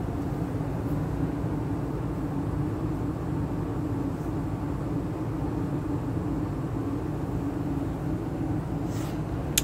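2012 Carrier gas furnace running steadily in heat mode: an even low hum of its inducer motor and burners with a faint constant tone. A sharp click near the end.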